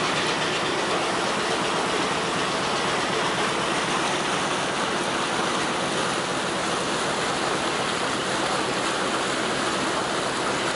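Propeller wash of the ferry Møn churning and rushing in the water astern as the ferry pulls away from its berth: a steady rushing noise.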